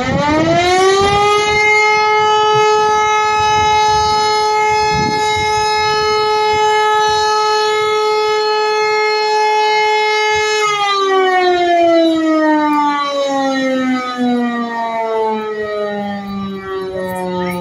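Hörmann E57 electric motor-driven rotor siren sounding for a siren test: it spins up to full pitch in about the first second and a half, holds one steady tone for about nine seconds, then winds down with a long falling pitch as the rotor slows after switch-off.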